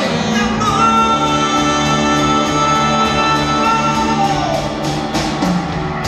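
Live band playing an instrumental break in a ballad. A long held lead note slides down about four and a half seconds in, over a pulsing bass line and steady cymbal ticks.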